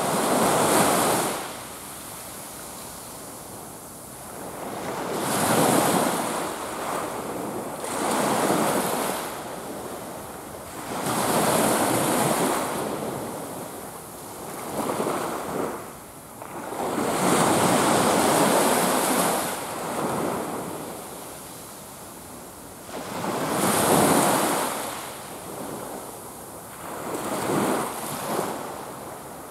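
Surf on a sandy beach: small waves breaking and washing up the shore, swelling and fading every few seconds.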